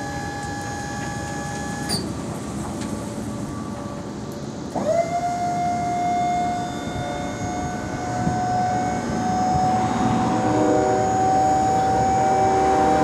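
Electric lift motor of a pickup-mounted truck-lift crane whining steadily as it hoists and tips a loaded steel dump bed. The motor stops with a click about two seconds in, then starts again about five seconds in, spinning up quickly to a steady whine that grows louder toward the end.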